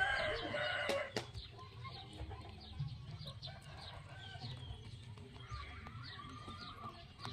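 Chickens clucking in the background, with a long crow-like call in the first second and many short high chirps throughout, over a steady low hum.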